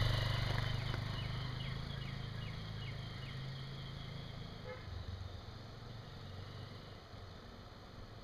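A 2024 Honda XR150L's single-cylinder four-stroke engine pulling away as the bike rides off, its sound fading steadily into the distance.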